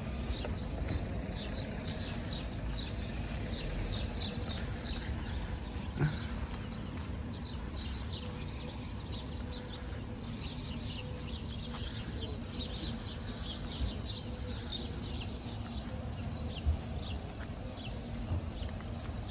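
Small birds chirping: many short, high, falling chirps repeating throughout, over a steady low rumble.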